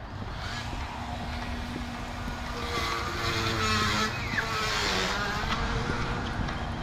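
A motor vehicle driving past on a nearby street: engine and tyre noise swell to a peak about four to five seconds in, dipping slightly in pitch as it goes by, then ease off.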